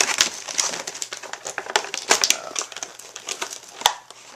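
Twist ties being untwisted and pulled off new packaging, the plastic crinkling and rustling with scattered light clicks and one sharper click near the end.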